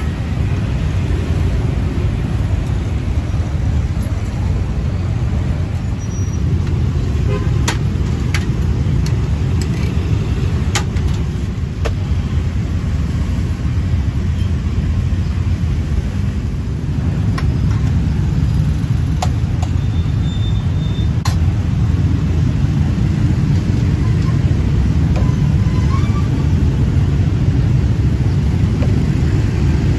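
Steady low rumble of road traffic, with cars and motorbikes passing close by. A few sharp clicks of metal utensils at the food stall are scattered through the middle.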